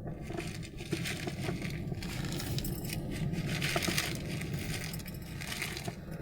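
Dry rice being scooped and measured out of its packet: a continuous crinkly rustle with small grainy clicks.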